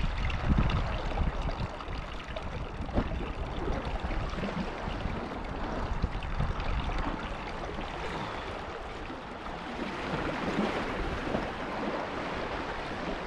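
Sea water washing and trickling among shoreline rocks, steady throughout, with a low rumble in the first few seconds.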